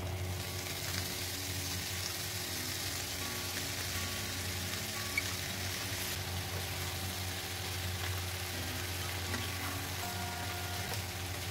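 Food frying in hot oil in a pan, with a steady sizzling hiss, over background music.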